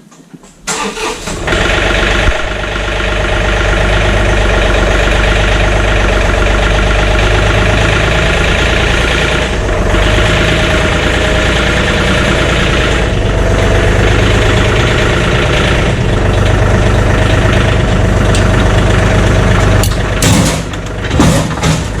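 Tractor engine starting about a second in, then running steadily. A few knocks come near the end.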